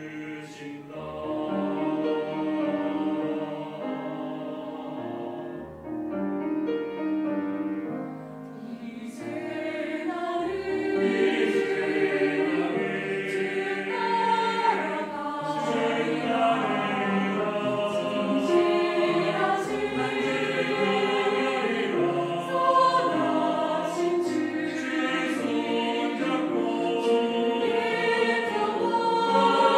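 Mixed church choir singing a Korean hymn in parts, accompanied by piano and cellos with a violin; it grows fuller and louder about nine seconds in.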